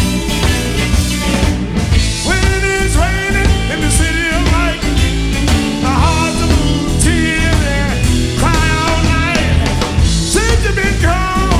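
Live electric blues band playing: electric guitars, bass and drums with a steady beat, and sliding, bending melodic phrases coming back every couple of seconds.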